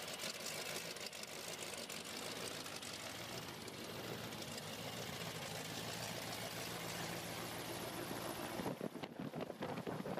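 Piston engine of a small red homebuilt racing plane running steadily at a low, even pitch. About nine seconds in the engine note drops away and a rough, irregular noise takes over.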